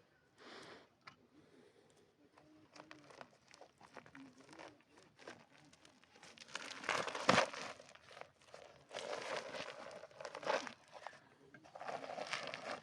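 Irregular rustling, crinkling and scraping noises of hands at work, coming in bursts that grow louder about halfway through and again near the end.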